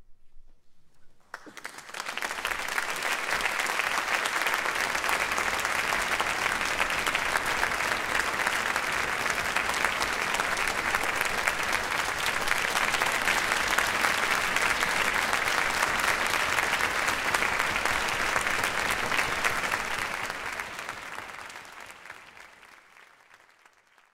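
Concert audience applauding. The applause starts about a second in, holds steady, and dies away near the end.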